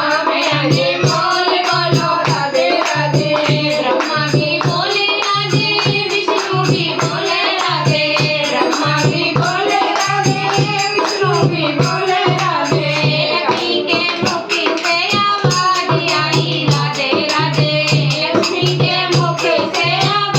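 Haryanvi devotional bhajan: voices singing over a steady percussion beat with fast jingling strokes.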